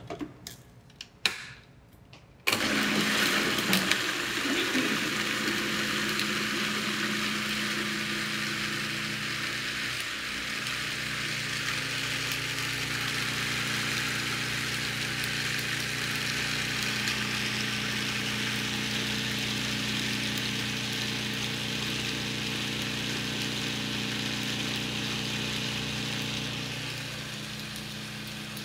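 Electric food processor puréeing hummus (chickpeas and tahini). After a few clicks it starts suddenly about two seconds in and then runs with a steady whirring hum, a little quieter near the end.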